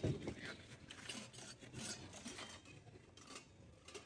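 Used stainless steel bowls and plates clinking and scraping as they are stacked into a plastic tub: a few light, scattered knocks and rattles.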